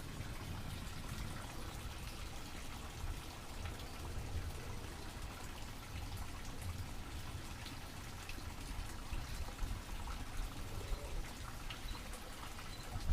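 Steady rain falling during a thunderstorm, with scattered drops ticking and a low rumble underneath.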